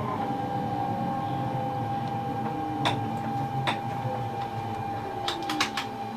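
Electric S-train running with a steady electric whine over a low rumble. A few short clicks come through, several close together near the end.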